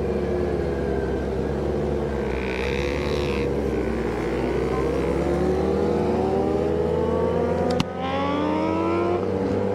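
Kawasaki ZX-10R's inline-four engine pulling hard, its pitch climbing through the revs, then a sharp cut at a gear change about eight seconds in before it climbs again. Loud.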